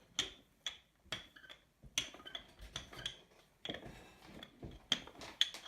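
Pie dough being rolled out with a rolling pin on a counter: a dozen or so irregular light knocks and clicks, with rubbing between them.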